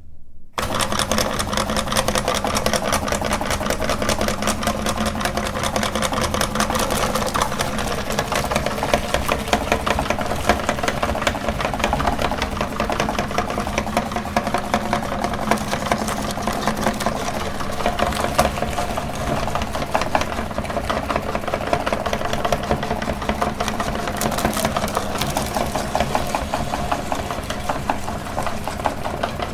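Electric meat grinder switched on about half a second in and running steadily as it grinds ice cream: a motor hum with a dense, fine rattle.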